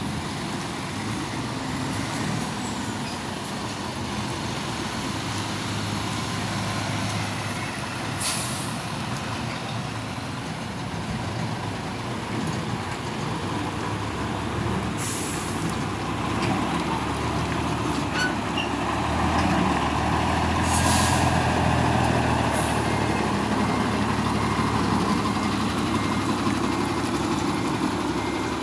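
Heavy truck engines running, getting louder in the second half as a truck pulls in, with four short air-brake hisses. A reversing beeper starts repeating near the end.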